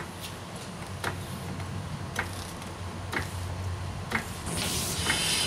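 Hydraulic floor jack being pumped by its long handle, a sharp click about once a second with each stroke as it lifts the rear of a car. A short hissing noise comes in near the end.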